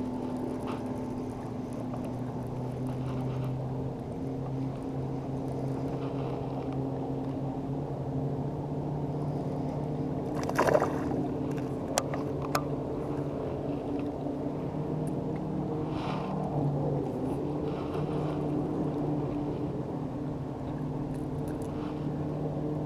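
A small fishing boat's motor humming steadily, with brief clicks and a short burst of noise about halfway through.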